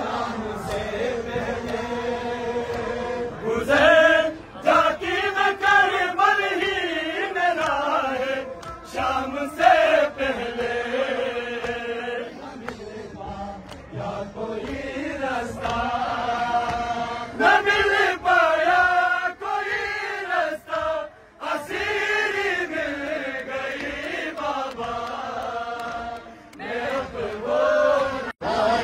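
A group of men chanting a noha, a Shia mourning lament. A reciter with a microphone leads and the crowd sings with him, in long sung phrases with short breaks between them.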